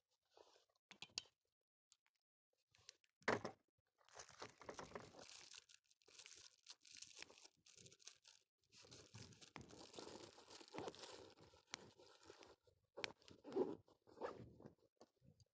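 Quiet handling noise: two stretches of rustling and crinkling a couple of seconds each, with a few sharp knocks between them, one louder knock about three seconds in.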